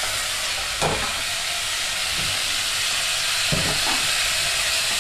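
Pieces of beef and pork browning in oil in a pot on a gas burner, sizzling steadily, with a couple of short knocks.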